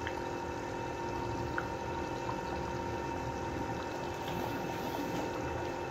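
Chicken qorma gravy simmering in a pot on the stove, a steady bubbling hiss with a faint steady hum underneath.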